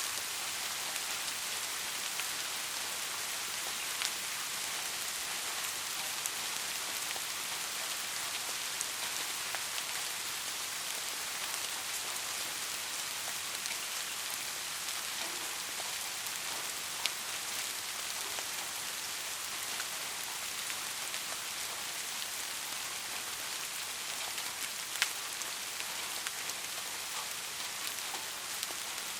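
Steady rain falling, an even hiss with scattered drop ticks; a few sharper drips stand out about 4, 17 and 25 seconds in.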